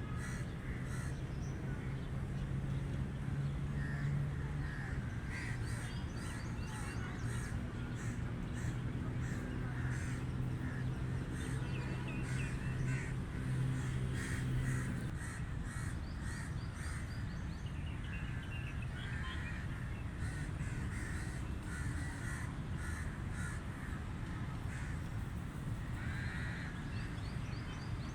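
Several crows cawing repeatedly, over a low background rumble. A steady low hum runs under the first half and stops about halfway through.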